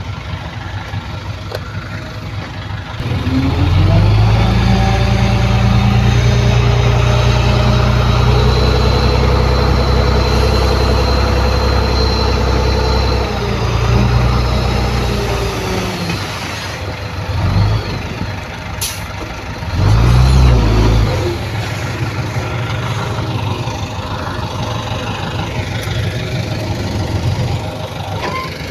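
Heavy diesel engine revving up about three seconds in and holding at high revs for some ten seconds, then dropping back to a lower run, with two short revs later on.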